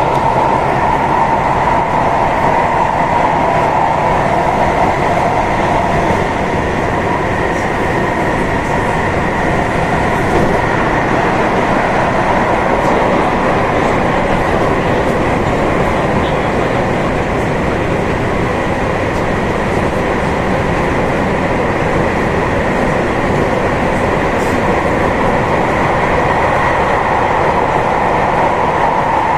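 Tokyu 3020 series electric train running at a steady speed: continuous rumble and rail noise with a steady hum.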